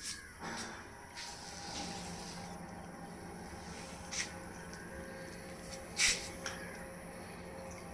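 Outdoor ambience: a soft steady hiss with a low hum underneath, broken by two brief sharp clicks about four and six seconds in, the second the louder.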